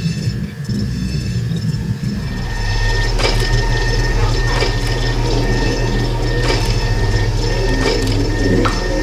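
Machinery sound effects for an animation of the body as a factory: a steady low mechanical hum sets in about two and a half seconds in, under a thin high tone and a few sharp clicks.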